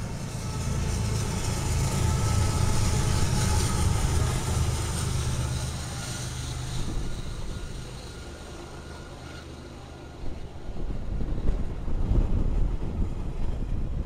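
A train passing, with a diesel locomotive's engine droning steadily for the first half. The sound eases off, then a louder, rougher rumble builds from about ten seconds in.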